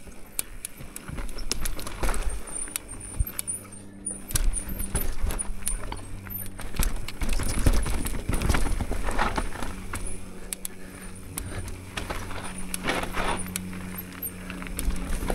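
Mountain bike riding down a rough dirt and rock trail: tyres crunching and sliding over the surface, with chain and frame rattling in quick clicks and knocks over bumps and several louder surges of tyre noise.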